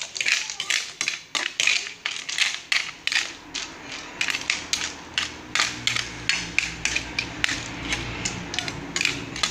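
Cooking utensil scraping and knocking against a wok in quick, irregular strokes while a stew of snails and vegetables in coconut milk is stirred. A low hum joins about six seconds in.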